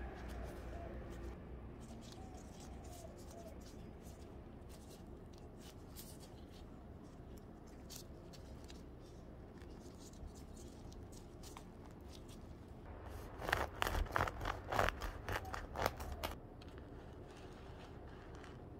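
A knife cutting through the crust of a filled seeded sourdough loaf: a quick run of sharp, crisp strokes for about three seconds a little past the middle. Before it, faint taps and rustles of gloved hands handling the bread and sliced meat.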